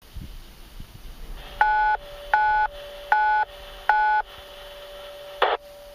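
Four DTMF touch-tone beeps, each about a third of a second long and evenly spaced, keyed over an amateur radio EchoLink connection to dial a node. A steady hiss runs underneath, and a short burst of static comes near the end.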